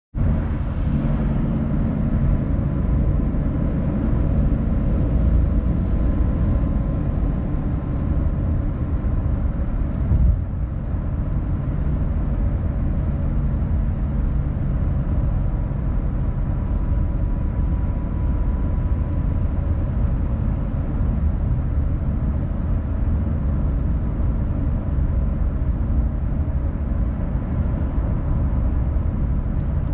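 Steady road and tyre rumble of a car at highway speed, heard from inside the cabin, with a single thump about ten seconds in.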